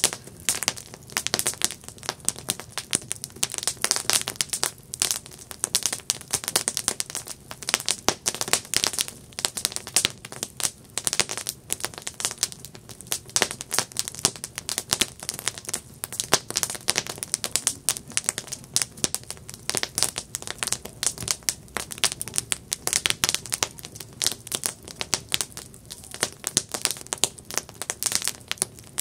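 Wood campfire crackling: a steady stream of irregular sharp pops and snaps from the burning wood.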